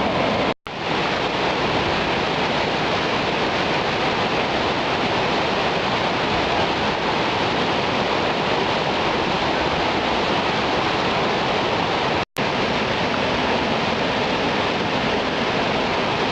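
Floodwater rushing down a desert stream bed in a flash flood: a loud, steady rushing roar. The sound cuts out for a split second about half a second in and again about twelve seconds in.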